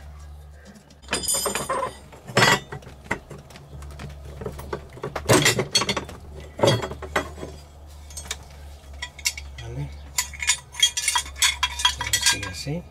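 Metal wrench clinking and clicking against the steel bolt and hold-down bracket of a vehicle battery as the bolt is undone by hand, in irregular sharp metallic clinks, with a busy run of them near the end.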